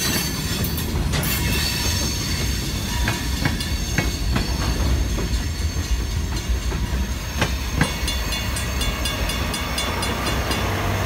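Freight train of covered hopper cars rolling slowly past: a steady low rumble of steel wheels on the rails, with a few sharp clicks as the wheels run over the track.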